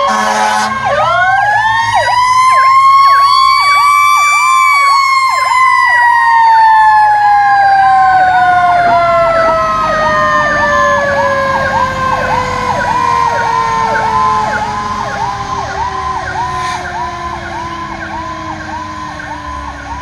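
Fire truck sirens passing. One siren winds up over a few seconds and then falls slowly in pitch for the rest of the time, while a second siren yelps rapidly, about two or three times a second. The sound fades in the later part.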